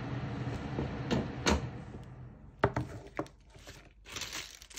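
Light knocks and clicks of icing piping bags being handled and set down on a tabletop, with a short plastic rustle near the end. A low steady hum runs under the first two seconds.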